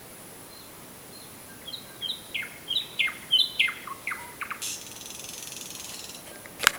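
Nightingale singing: a run of repeated downward-sliding whistled notes, a few clicks, then a dry rattling trill. A sharp click sounds just before the end.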